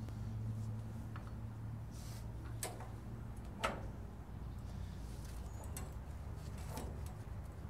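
Four scattered sharp clicks and taps of hand tools on the sawmill's metal blade-guide parts, the loudest about halfway through, over a low steady hum.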